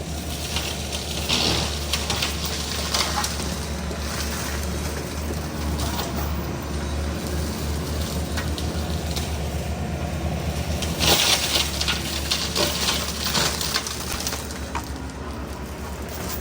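Excavator-mounted forestry mulcher (FEMAC T9 head on a Yanmar ViO55) running steadily under the excavator's diesel drone, with bursts of crunching and cracking as it shreds undergrowth and branches; the loudest burst comes about two-thirds of the way through.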